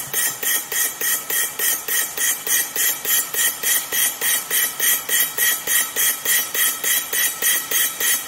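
High-frequency jet ventilator firing rapid jets of oxygen at about 200 a minute, driven at 2 bar: a steady train of short hissing puffs, a little over three a second, each with a faint click.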